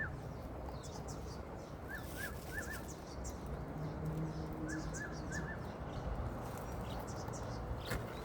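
A bird calling, a quick run of four short upslurred chirps, given twice, over a low steady background noise.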